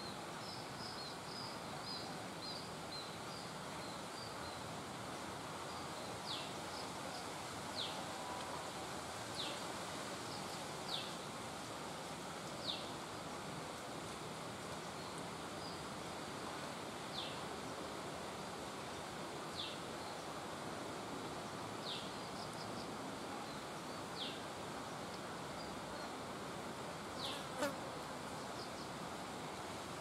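Steady insect buzzing, with a bird's short downward-sliding whistle repeated every one to two seconds and a quick run of high chirps near the start.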